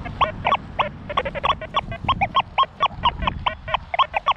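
XP Deus 2 metal detector sounding a rapid, irregular string of short beeps, about five or six a second, some bending in pitch: the chattering iron tones given as the coil sweeps over ground packed with nails and other iron.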